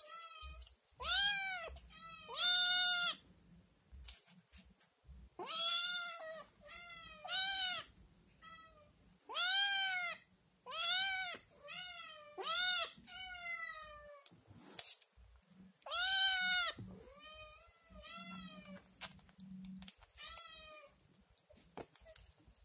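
Scottish kitten meowing loudly and insistently, a long run of high, rising-then-falling meows about one a second with a few short pauses: a kitten begging for food it wants.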